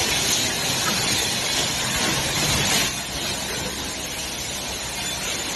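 Automatic surgical-towel length sewing machine running, a steady mechanical noise with a strong hiss. About three seconds in the hiss drops away and the noise eases to a lower, duller level.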